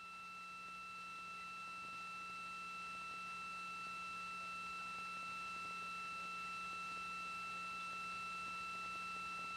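Faint steady electronic tone on the broadcast audio feed: a high whine with a fainter overtone above it and a low hum beneath, over light hiss, unchanging throughout.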